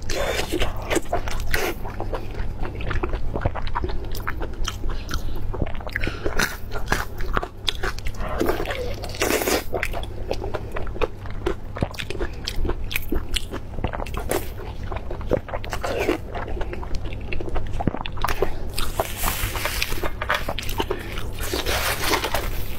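Close-miked eating sounds: biting and chewing a skin-on piece of meat, with dense wet smacking and crunchy clicks and no pause. A steady low hum runs underneath.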